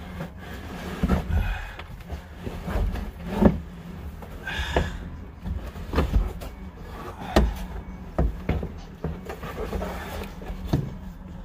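A fiber-optic starlight headliner board being wrestled up into a car's roof by hand: irregular knocks and bumps as the board and its trim hit the roof and pillars, with scraping and shuffling in between. A steady low hum runs underneath.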